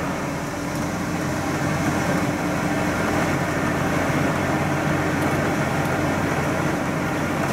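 Bus running steadily, an even engine hum with road noise and no change in speed.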